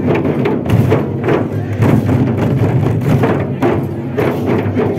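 Large wooden barrel drums beaten with sticks in a steady, repeated beat of about two strokes a second, over the noise of a dancing crowd.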